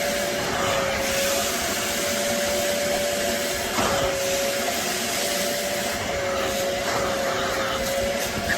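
BISSELL Little Green portable upholstery cleaner running: a steady motor and suction hiss with a humming tone that wavers slightly in pitch, and a short knock about four seconds in.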